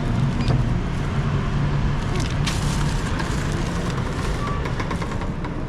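Steady street traffic rumble with a few scattered clicks and knocks, the sharpest about two and a half seconds in.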